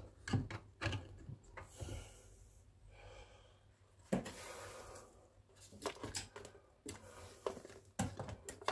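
Green pepper pieces being dropped by hand into a blender jug: scattered soft knocks and thuds against the jug, with short stretches of rustling handling noise between them.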